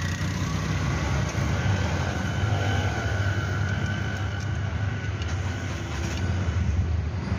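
Bajaj auto rickshaw engine running steadily with a rapid low throb.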